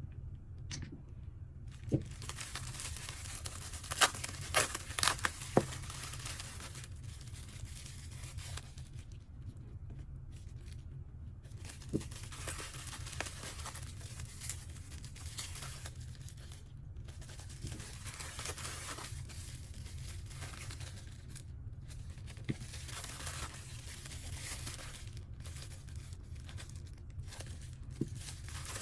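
Packaging being unwrapped by hand: continuous crinkling and tearing, with a few sharp clicks and taps scattered through, over a low steady hum.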